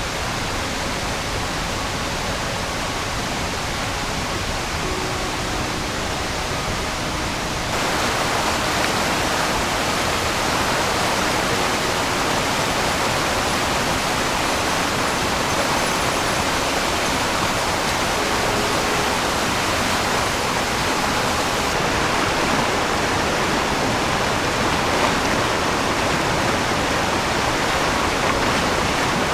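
Oirase Stream's water rushing steadily over rocks in the gorge. It gets louder and fuller about eight seconds in.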